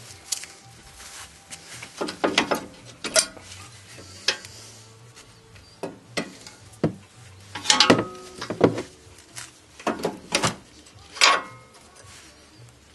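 Metal clinks and scrapes of a rear brake caliper being worked loose and pulled off a drilled brake disc, in short irregular clusters of sharp clicks every second or two.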